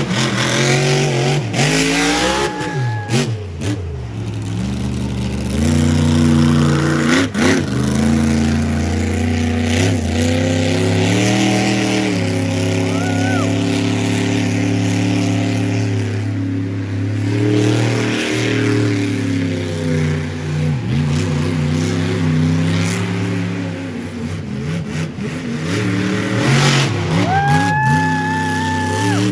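A 1,500-horsepower competition monster truck's supercharged V8 revving hard, its pitch climbing and dropping again and again with the throttle as the truck drives over the dirt course. A couple of sharp thumps come through, one about seven seconds in.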